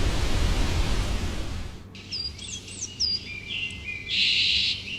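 Waterfall rushing, cut off about two seconds in and replaced by forest birdsong: a few quick, high, downward-sweeping chirps, then a dense burst of twittering.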